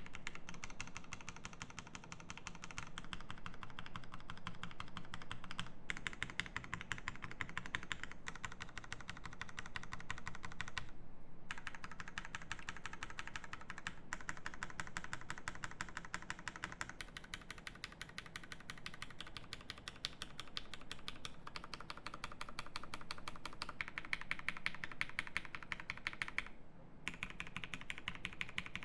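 Fast, continuous typing on a TGR Jane V2 CE mechanical keyboard with lubed Cherry Hyperglide Black linear switches, a carbon plate and GMK keycaps: a dense run of key clacks. It pauses briefly about eleven seconds in and again near the end.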